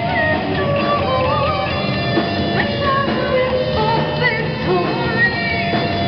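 Heavy metal band playing live: distorted electric guitars and drums under a woman's lead vocals, with wavering, bending melody lines over a dense, steady wall of sound.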